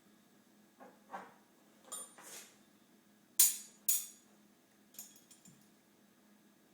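A pile of spoons clattering and clinking as they are knocked and dropped together. Short jangles come every second or so, the loudest two about three and a half and four seconds in, then a few light clinks.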